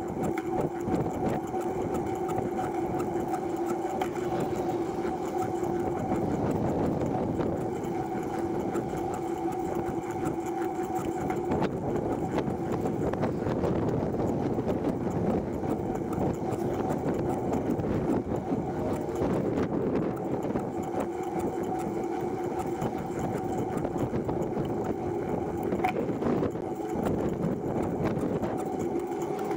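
TerraTrike recumbent trike rolling along an asphalt path, its chain drivetrain and tyres making a steady whirring hum with a fine, fast rattle.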